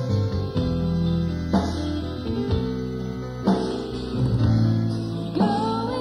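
Rock band studio recording: acoustic guitar strumming over bass and keyboards, with a strong hit about every two seconds. A long held high note comes in near the end.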